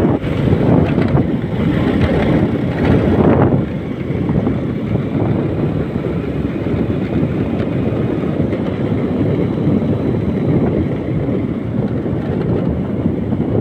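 Wind buffeting the microphone of a phone carried on a moving vehicle, with low rumbling road noise underneath, a little louder in the first few seconds before settling.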